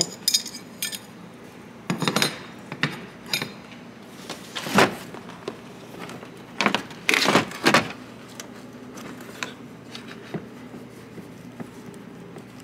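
Irregular plastic clicks and light metal clinks from hands and a flat metal tool working plastic clips and a wiring connector loose on a car's front end. The sharpest knocks come about five seconds in and a cluster around seven to eight seconds.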